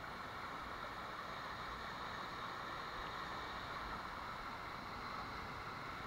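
Mountain stream rushing steadily over a small rocky cascade, a continuous even wash of water noise.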